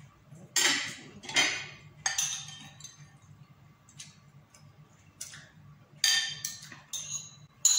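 Metal spoon clinking and scraping against a ceramic bowl as the last noodles are scooped up, in about six short, sharp strikes, a few near the start and a few near the end.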